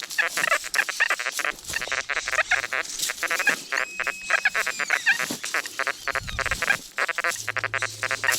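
XP Deus metal detector giving a fast, broken run of tones as the coil sweeps over ground thick with buried iron and other metal.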